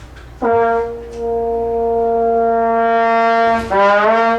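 Trombone playing one held note as a sforzando: a sharp, loud attack that drops soft, then swells back up and holds. Near the end the note is attacked loud again, starting a little low and sliding up in pitch before it cuts off. It is played as a test of whether the pitch stays in tune as the volume rises.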